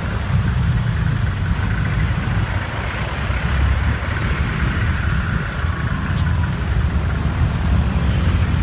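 Congested road traffic of jeepneys and motorcycles: their engines run together as a steady low rumble, heard from close alongside.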